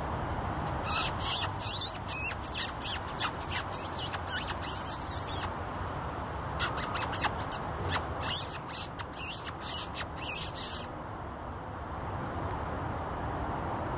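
Rapid, high-pitched squeaks imitating a distressed mouse or vole, made to lure a weasel. They come in two runs of about four seconds each, with a short pause between.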